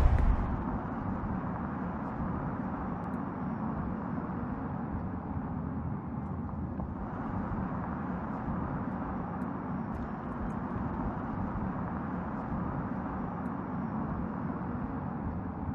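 Audi RS e-tron GT electric sedan driving on the open road: a steady rush of tyre and road noise. A louder pass fades away just at the start.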